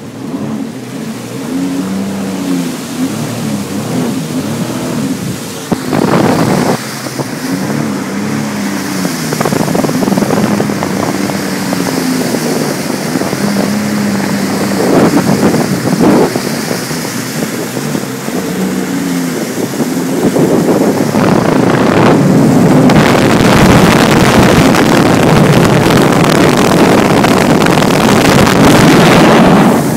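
2012 Sea-Doo RXP-X personal watercraft engine running on open water, its pitch rising and falling with the throttle. A few sharp knocks come through, and a rush of wind and spray builds over the last third.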